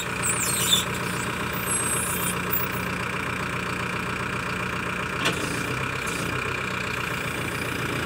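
Manitou 74.5 hp backhoe loader's diesel engine running steadily under hydraulic load as the loader arm and backhoe hold the machine up. A few high squeaks come in the first couple of seconds, and a single sharp knock about five seconds in.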